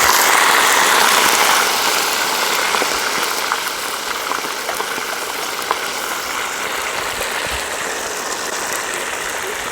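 Chicken pieces sizzling loudly in hot oil in a karahi, just after being dropped in. The hiss is fiercest for the first second or two, then settles into a steady frying sizzle with a few small pops.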